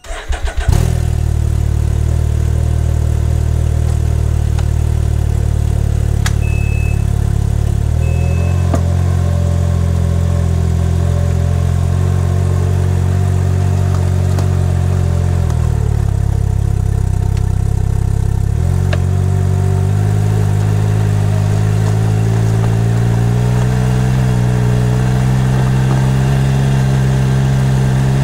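Can-Am Ryker 900's three-cylinder engine heard through a microphone mounted on its exhaust, running steadily at low revs as the bike rolls slowly. Its pitch drops briefly past the middle, then climbs slowly toward the end.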